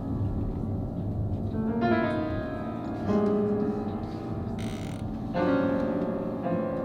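Piano playing slow, sustained chords, a new chord struck about two, three and five and a half seconds in and left to ring. A brief hiss near the middle.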